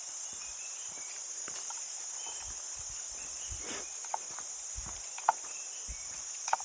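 Steady high-pitched buzz of forest insects, with soft footsteps on a dirt and leaf-litter trail and a few sharp clicks underfoot, the loudest about five seconds in.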